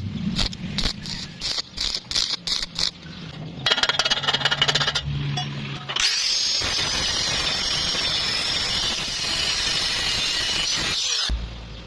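Angle grinder grinding down a weld on thin square tube: after a quick run of short bursts, it runs steadily with a high whine for about five seconds and cuts off sharply near the end.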